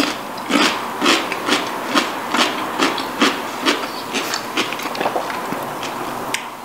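Close-miked chewing of a crunchy sweet gherkin pickle spread with peanut butter: a steady rhythm of wet crunches, about two a second, growing fainter toward the end.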